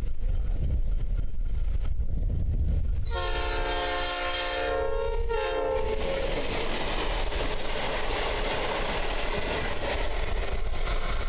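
Diesel locomotive's multi-tone air horn sounding a long blast and then a short one, the second dropping slightly in pitch as the locomotive passes. Before the horn there is a low rumble of the approaching train; after it comes the steady rolling noise of stainless steel passenger carriages going by.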